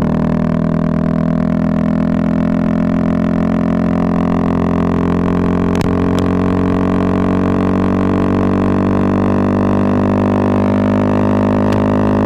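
Bajaj Pulsar 220F's single-cylinder engine, breathing through a Race Concepts full-system aftermarket exhaust, held at steady revs while riding, giving a steady drone. There are two short clicks about six seconds in and one more near the end.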